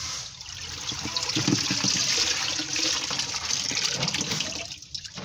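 Water splashing and pouring as a mesh fish net is swept through a water-filled tub and lifted out, water streaming off the net back into the tub. The rushing builds about a second in and stops abruptly near the end.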